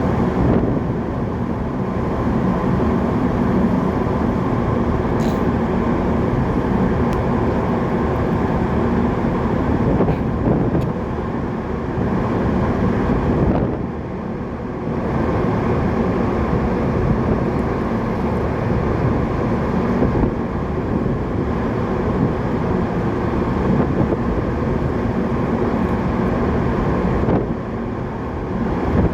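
Steady low drone of a large container ship under way, a constant mechanical hum under a broad rushing noise, dipping briefly about halfway through and near the end.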